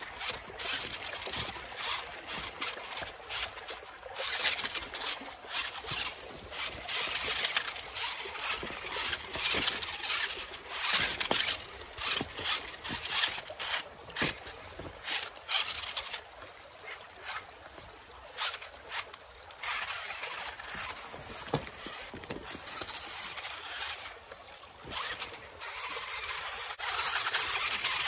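Radio-controlled rock crawler driving over loose creek-bed stones: its small electric motor whirring in short, varying bursts while the tyres and chassis crunch and clatter on the rocks. It is quieter for a stretch past the middle and busier again near the end.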